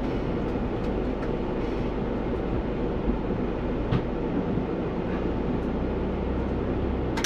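Bus engine and running gear rumbling steadily inside the driver's cab, with a low hum, and a short knock about four seconds in and another near the end.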